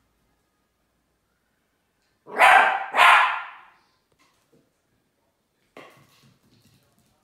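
Dachshund puppy barking twice in quick succession, two sharp, loud barks about half a second apart, at an empty plastic bottle it is afraid of. About six seconds in, a short, much quieter clatter follows.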